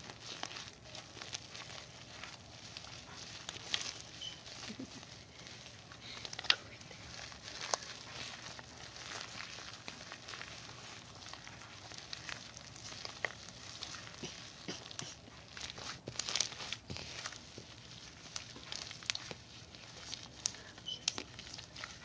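Hand kneading and squeezing white slime, giving irregular sticky clicks, pops and crackles.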